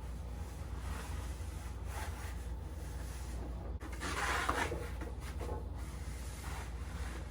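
Rubbing and scraping of animatronic parts being slid and handled during assembly, loudest in a burst about four seconds in, over a steady low hum.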